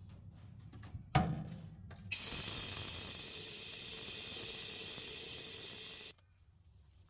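A single knock about a second in, then compressed air hissing steadily for about four seconds through an air-powered vacuum bleeder drawing fluid out of the clutch slave's bleed nipple. The hiss cuts off suddenly.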